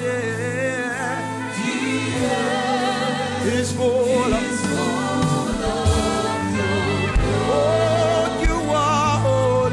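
Gospel worship song: several voices singing with wide vibrato over sustained keyboard and bass chords, with a few soft low drum thuds in the second half.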